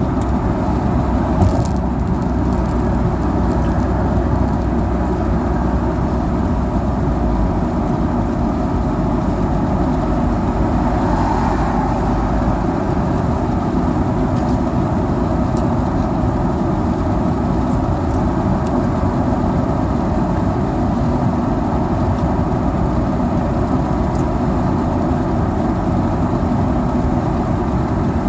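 Volkswagen Scirocco 2.0 TDI diesel car driving, a steady mix of engine and road noise with no sharp events.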